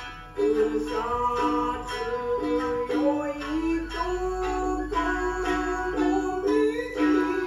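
Music on a plucked string instrument, a steady run of short notes in an even rhythm, starting about half a second in, as accompaniment to a traditional Japanese dance.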